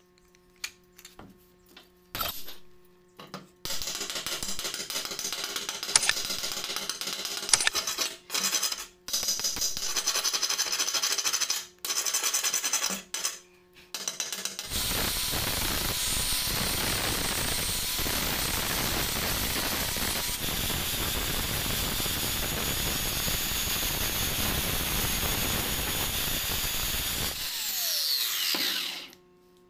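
Arc welding on a steel tube in several short runs, each a few seconds of crackling that stops abruptly. About fifteen seconds in, an angle grinder takes over, grinding the weld flush for about thirteen seconds, then spins down with a falling whine near the end.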